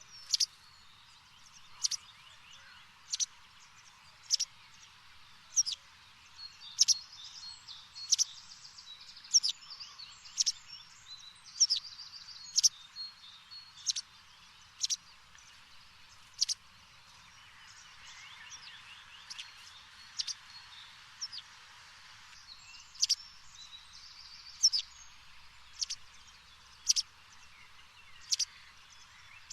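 A bird calling outdoors, a short sharp chirp repeated about every second or so, with softer warbling bird song in between.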